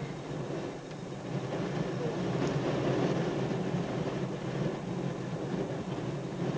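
Class 37 diesel locomotive running past with a steady, low engine drone.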